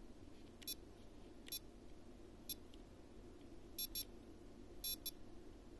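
Short high-pitched electronic beeps from the Eachine PRO58 FPV receiver module as its menu is scrolled: three single beeps about a second apart, then two quick pairs.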